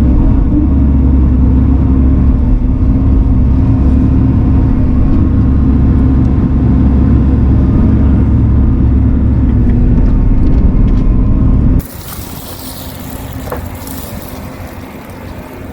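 Diesel engine of a Bobcat mini excavator running steadily and loudly while working. About twelve seconds in it cuts off abruptly, and a much quieter hiss follows.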